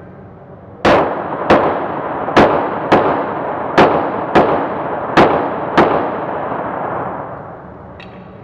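Eight pistol shots fired as four quick pairs, about half a second apart within each pair, each shot echoing off the walls of an indoor range.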